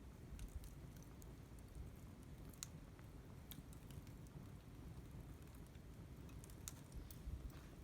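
Wood campfire crackling faintly: irregular sharp pops and snaps scattered through, over a low steady rumble.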